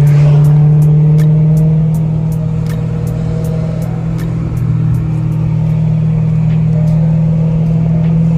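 BMW E90 M3's 4.0-litre V8 running at a steady cruise, a loud, even low drone heard from inside the cabin. A faint, even ticking, about three a second, sits behind it.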